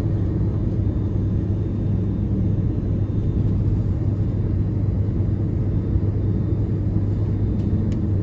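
Steady low vehicle rumble with a constant deep hum, unchanging throughout.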